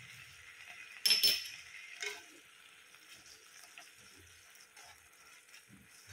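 Grated bottle gourd simmering in milk in a nonstick pan with a faint steady sizzle. A steel spoon of ghee strikes the pan with a sharp clink about a second in and a lighter one a second later, then a slotted spatula stirs and scrapes the mixture.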